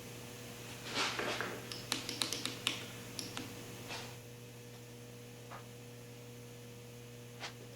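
Light metallic clicks and taps from the engine's rocker shaft assembly being oiled and handled: a short rustle about a second in, a quick run of clicks over the next two seconds, then a few scattered ones, over a steady electrical hum.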